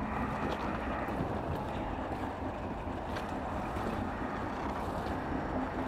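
Steady wind noise buffeting the microphone, with a few faint crunches of footsteps on gravel.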